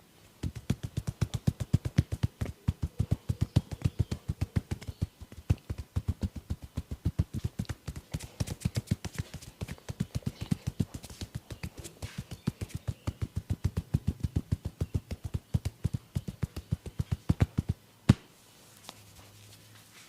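Hands striking in a percussive tapping massage, a fast even rhythm of about five slaps a second that runs for some seventeen seconds, followed by one louder sharp crack.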